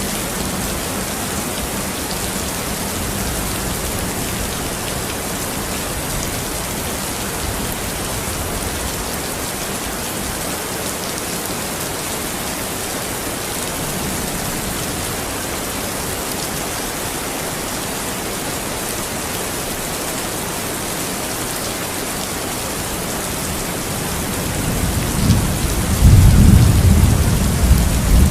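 Steady rain falling, an even hiss of rain on surfaces. Near the end a low rumble of thunder builds up and rolls loudly over the rain.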